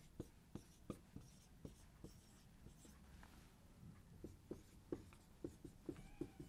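Dry-erase marker writing numbers on a whiteboard: a faint string of short taps and strokes, about two a second, coming closer together near the end.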